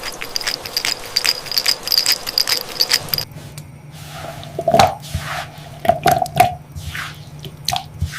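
Food being handled in a kitchen: a dense run of small crackling clicks, then, after a sudden change about three seconds in, a series of wet squishing sounds.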